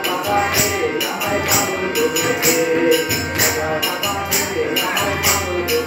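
Group of men singing along to a harmonium and tabla, with a sharp percussive beat about twice a second from hand-clapping.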